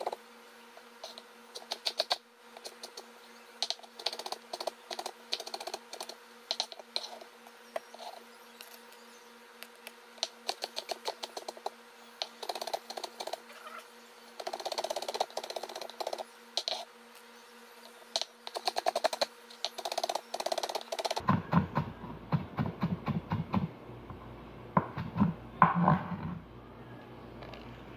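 Kitchen knife slicing lemon peel thinly on a cutting board: quick, irregular clicks of the blade striking the board. A low hum comes in about three-quarters of the way through.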